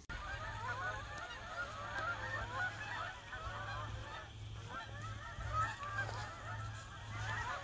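A flock of geese honking, many short calls overlapping throughout, over a low hum.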